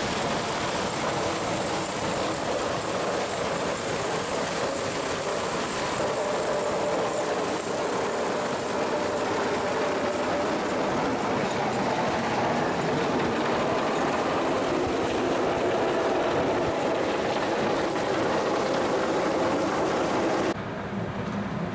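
Heavy snow-removal trucks running on a snow-covered road: a steady rumble of engine and road noise, which changes abruptly near the end.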